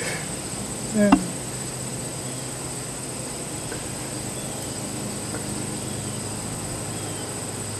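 Steady, high-pitched chirring of crickets or other insects, with one short, loud burst about a second in.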